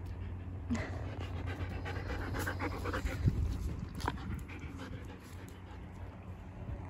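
A German shepherd-type dog panting in quick breaths, strongest from about a second in until about four seconds in.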